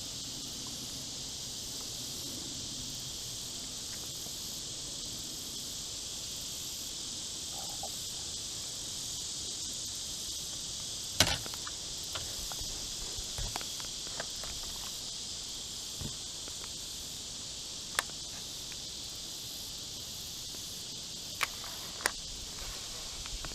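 A steady, high-pitched chorus of insects, with a few sharp clicks or knocks over it, the loudest about eleven seconds in.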